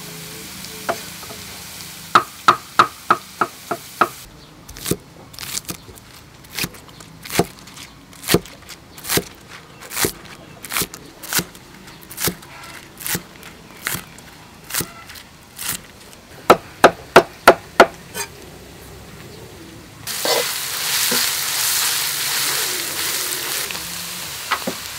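Kitchen knife chopping vegetables on a thick wooden chopping board: single chops about every half second, with two quick runs of about six rapid chops. About twenty seconds in, a wok of shredded vegetables in hot oil starts sizzling suddenly and keeps on.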